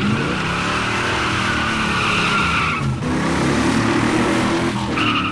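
1965 Pontiac GTO's 360-horsepower V8 running hard with its tires squealing: a long squeal through the first three seconds, then the engine note climbing, then a short squeal again near the end.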